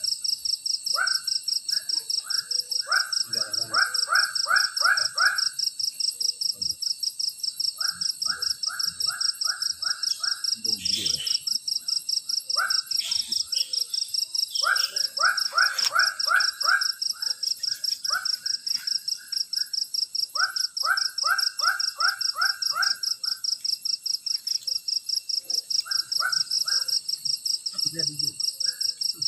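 Forest insect chorus: a continuous high, fast-pulsing buzz with steady shrill tones above it. Over it, an animal call repeats in runs of five to seven quick notes, several times.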